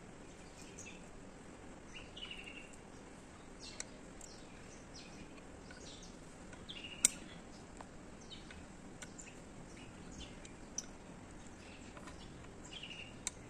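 Birds chirping now and then over a faint steady background hum, with light clicks of brass rivets being set by hand into the holes of a new brake-shoe lining; one sharper click about seven seconds in is the loudest sound.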